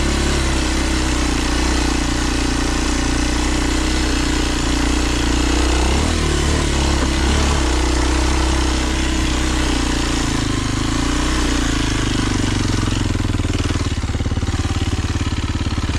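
Kawasaki KLX 230's single-cylinder four-stroke engine running at low revs on a trail climb, with a brief rise in revs about six seconds in, then settling to a steady idle-like beat near the end.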